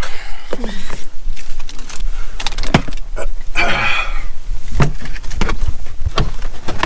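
Handling noise from climbing into a pickup truck cab: a run of knocks and clicks, with a burst of rustling about three and a half seconds in, over a steady low rumble.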